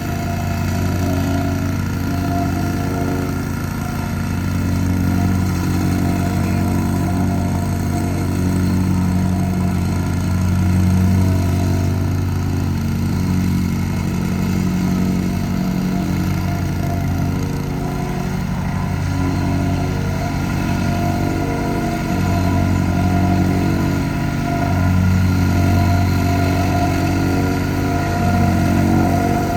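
Central Machinery 6.5 HP (179 cc) plate compactor's single-cylinder gas engine running steadily, its level swelling and dipping slightly every few seconds.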